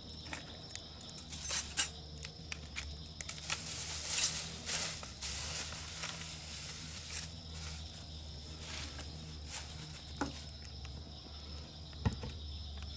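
Wood fire crackling and popping as a board burns, with scattered sharp pops and a brief stretch of louder hissing about four seconds in, over a steady high hiss.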